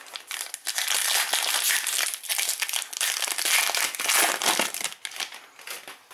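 Foil wrapper of a Panini Prizm basketball card pack crinkling as it is torn open by hand. A dense crackle lasts about five seconds, followed by a few lighter rustles near the end.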